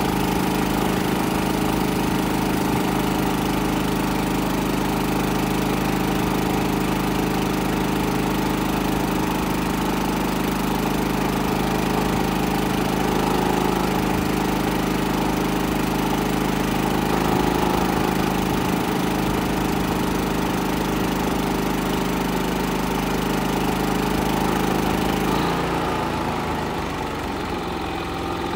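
Westinghouse iGen4500 inverter generator's single-cylinder engine running steadily under about a 2,000-watt load. About 25 seconds in, its engine speed drops and it becomes quieter as it throttles back toward idle with the load off.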